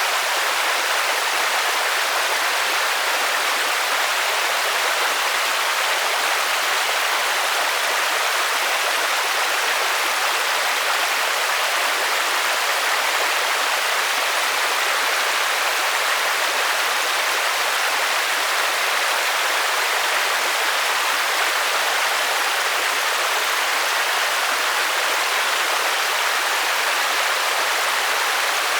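Steady rain, an even hiss with no single drops or other events standing out.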